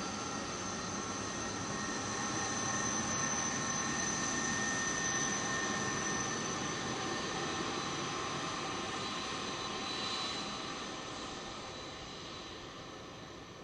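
Jet airliner's engines: a rushing roar with several steady whining tones, at its loudest in the middle and fading away over the last few seconds.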